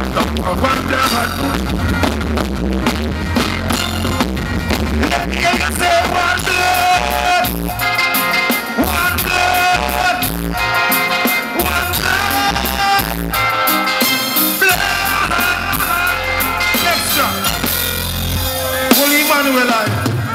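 Live reggae band music played loud through a concert PA, with a steady heavy bass line and drums, and a male singer's voice over it.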